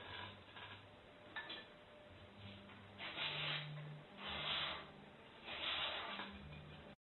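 Carving knife paring wood from a wooden figure: three scraping cuts of about a second each, with a few small ticks before them.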